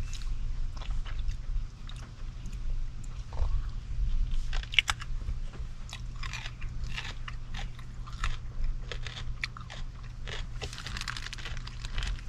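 Someone chewing a crunchy snack close to the microphone, with irregular crunches throughout and a thicker cluster near the end.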